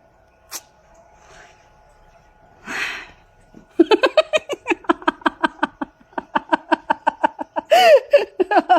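A pet animal giving a fast run of short squeaky calls, about five a second, starting about four seconds in, after a single short sniff-like burst a second earlier.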